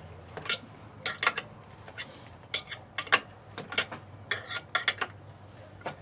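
Irregular light metallic clicks and clinks, several a second in clusters, as small stainless steel light hooks are handled and screwed into wood.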